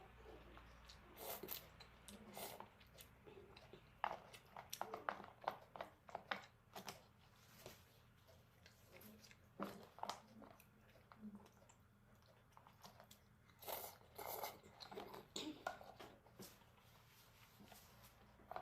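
Close-miked chewing and mouth sounds of someone eating jjajangmyeon with octopus: irregular short clicks and smacks that come in bunches, with brief pauses between.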